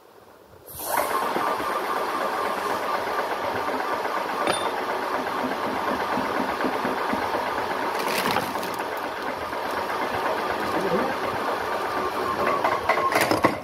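Airless paint sprayer (Ultrabest Bheem) switched on: its electric motor and pump start suddenly about a second in, run steadily, then stop abruptly at the end.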